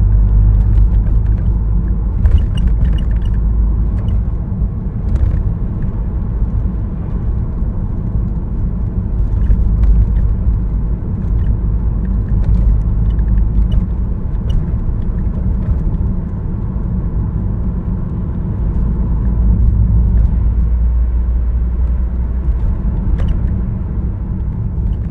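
Car on the move: a steady low rumble of engine and road noise, with a few faint clicks scattered over it.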